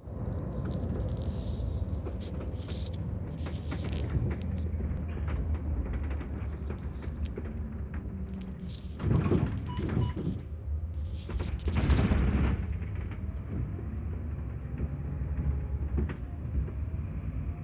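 Volvo 9700 coach running at low speed, heard from the driver's cab: a steady low drone of the rear diesel engine and road noise, with two louder rushing surges about nine and twelve seconds in.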